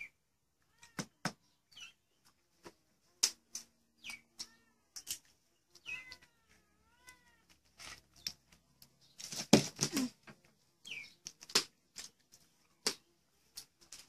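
A cat meowing over and over, short high mews that fall in pitch, with a couple of longer rising-and-falling meows about six to seven seconds in. Sharp clicks and taps come between them, the loudest cluster about two-thirds of the way through.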